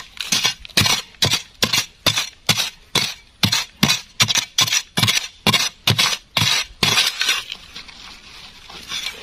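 A hand digging tool striking into the ground again and again, digging out a dung beetle burrow. The strikes come about two a second, each with a sharp clink, and stop about seven seconds in, followed by fainter scraping.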